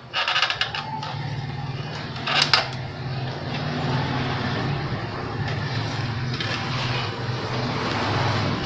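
A vehicle engine running steadily, with a few clicks as it starts and a sharp clack about two and a half seconds in.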